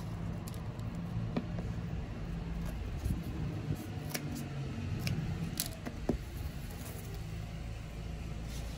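Garlic chives being cut off at the base: about half a dozen short, sharp snips, spaced irregularly, over a steady low rumble.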